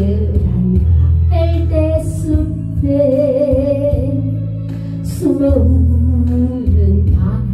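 Music from a Korean trot song: a steady bass beat under long, wavering melody notes that come in about a second and a half in, again around three seconds in and again past five seconds in.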